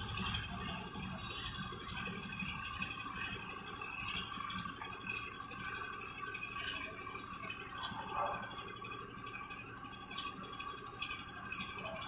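Wooden float scraping back and forth over wet concrete as the fresh slab surface is smoothed, with a steady engine hum behind it and a few light clicks.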